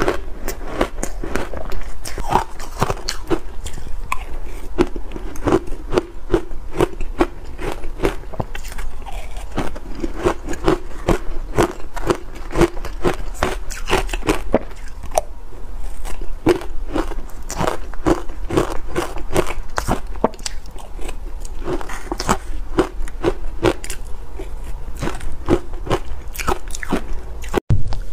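Biting and chewing of dry shaved ice dusted with green matcha powder: a dense, irregular run of crunches, with a brief gap near the end.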